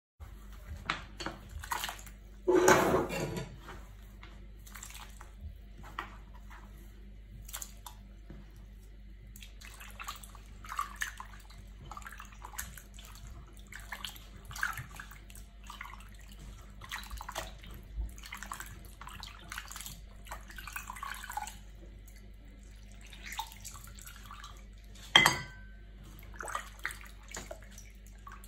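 Raw mutton pieces being rubbed and rinsed by hand in a steel pot of water: irregular sloshing and dripping splashes. A loud splash comes about three seconds in, and a sharp knock near the end.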